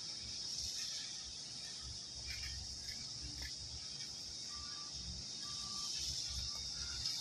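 Steady high buzzing of a summer insect chorus, with an uneven low rumble from the approaching steam locomotives underneath.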